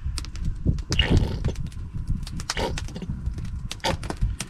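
Plastic mustard squeeze bottle being squeezed into a metal measuring spoon over a cup: many small clicks and taps of the bottle and spoon, over a low rumble.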